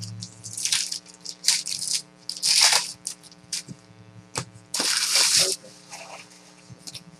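Trading-card foil pack wrappers crinkling and cards being handled, in several short rustling bursts, over a steady electrical hum.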